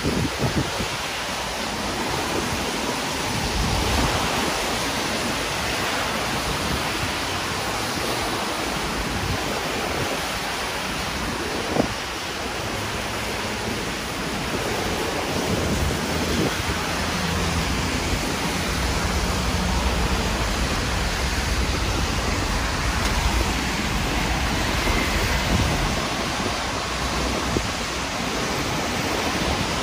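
Heavy rain falling steadily, a dense even hiss, with wind gusting on the microphone as a low rumble that grows stronger in the second half.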